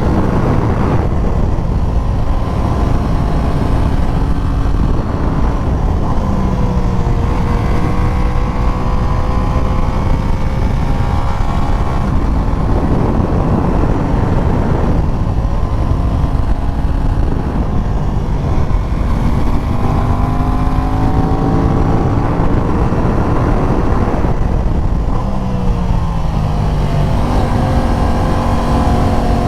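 Aprilia RS660's parallel-twin engine pulling hard under load while the motorcycle is ridden uphill. The revs rise several times and drop back at each gear change, over a steady low rumble.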